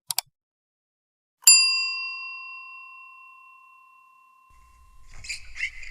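Two quick clicks, then a single struck bell ding that rings on and fades away over about three seconds; near the end a light jingling rattle begins.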